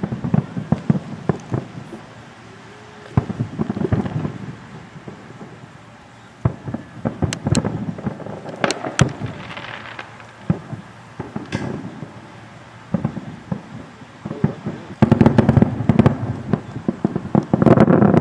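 Fireworks going off: sharp bangs and crackling that come in clusters, with quieter gaps between, busiest from about fifteen seconds in to the end.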